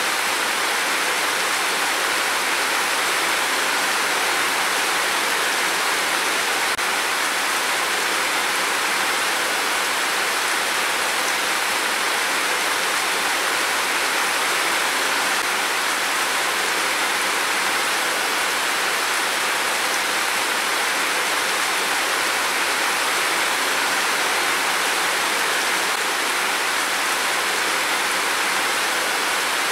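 Heavy rain falling in a steady downpour, an even hiss that does not rise or fall, with no thunder.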